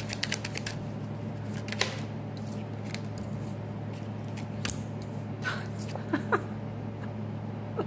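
Tarot cards being shuffled and handled: a quick run of crisp papery clicks in the first second or two, then scattered single card snaps, over a steady low electrical hum.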